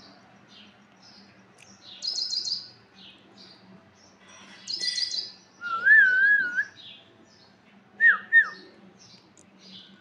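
Alexandrine parakeet calling: two loud, harsh calls about two and five seconds in, then a loud wavering whistle and two short falling whistles. Faint, high, repeated chirps run behind.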